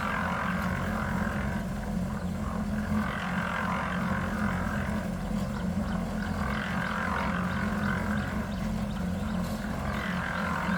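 A machine engine running steadily with a low hum, under a rushing noise that swells and fades about every three and a half seconds.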